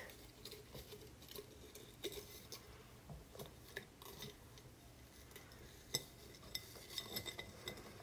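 Faint handling noise: small scattered clicks, taps and rustles as objects and the phone are moved about, with a sharper tap about six seconds in and a few quick clicks shortly after.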